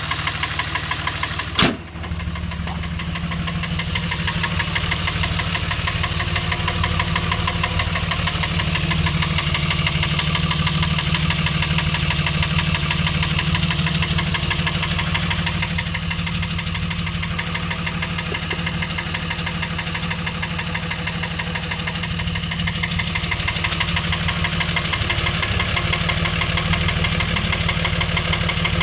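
Dodge Ram engine running steadily with a fast, even knock. There is a single sharp click about two seconds in.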